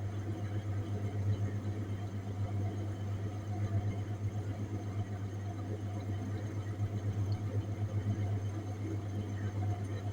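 Refrigerated display case running: a steady low machine hum with a slight flutter and fainter steady tones above it.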